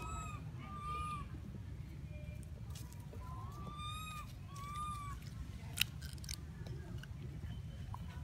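Macaque coo calls: several short rising-and-falling calls a second or more apart, over a steady low rumble, with one sharp click a little past the middle.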